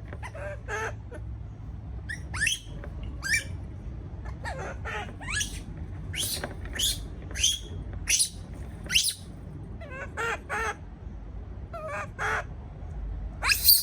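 Baby monkey giving many short, high-pitched cries, about one or two a second, several sweeping sharply upward in pitch: distress calls of an infant monkey afraid at being left alone.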